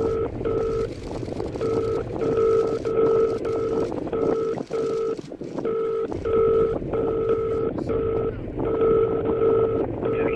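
Short electronic beeps at one mid pitch, about two a second with uneven gaps, over a rough, rumbling noise drone in an industrial noise piece.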